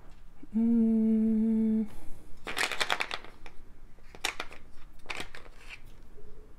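A person hums one steady note for about a second, then beads clatter and clink against the plastic of a compartment organizer box in three short bursts as a hand picks through them.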